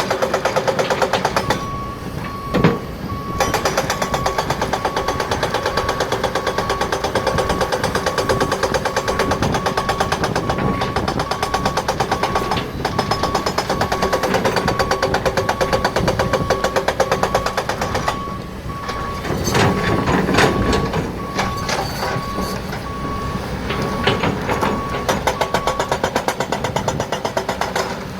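Heavy quarry machinery running with a fast, even rattling pulse, while a reversing alarm beeps steadily at one pitch for most of the time and stops near the end.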